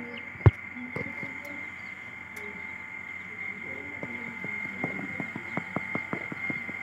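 Aseel mother hen giving short, low clucks to her chicks over a steady high background tone. There is a sharp click about half a second in, and a run of quick ticks in the second half.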